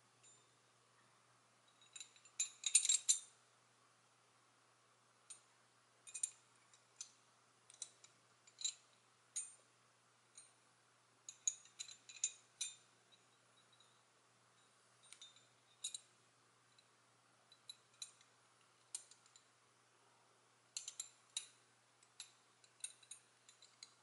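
Cast metal pieces of a Hanayama Seahorse puzzle clinking and clicking against each other as they are turned and slid in the hands: scattered light taps with a short metallic ring, the loudest quick cluster about two to three seconds in.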